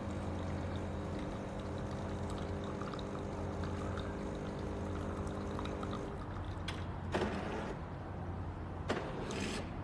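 Automatic espresso machine running its rinse cycle: the pump hums steadily as water runs through and pours out, stopping about six seconds in, followed by two short bursts of hiss.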